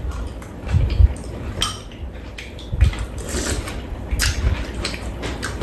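Metal spoons and chopsticks clinking against bowls at a shared meal: scattered light clicks, with two dull low thumps about a second in and near three seconds.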